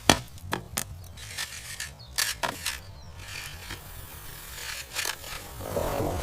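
A series of irregular sharp clicks and knocks over a low rumble, with a brief noisy swell near the end.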